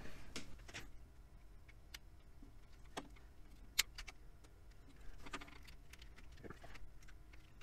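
Plastic housing of a Ninety7 Vaux speaker being handled and pried apart with a screwdriver: scattered small clicks, taps and scrapes, the sharpest click about four seconds in.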